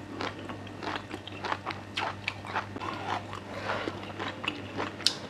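Close-up chewing of crunchy miang kham mixed with red weaver ants: a quick run of crisp crunches, several a second.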